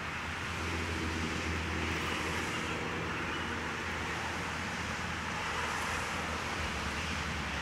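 Steady background noise: a low motor-like hum with a hiss over it, unbroken throughout.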